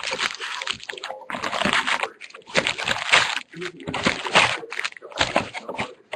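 Plastic wrapping on a trading-card box being torn and handled, crinkling and rustling in irregular bursts of about a second each.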